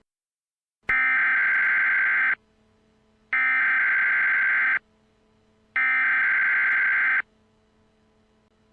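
Emergency Alert System SAME header: three bursts of warbling digital data tones, each about a second and a half long with about a second between them, that encode the alert ahead of the attention signal.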